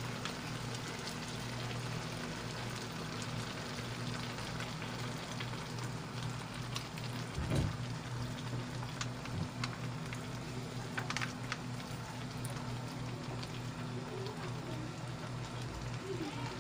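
Shrimp and string beans simmering in coconut milk in an aluminium wok: a steady crackling hiss with scattered small pops. About halfway through, more coconut milk is poured into the pan, with a low steady hum underneath.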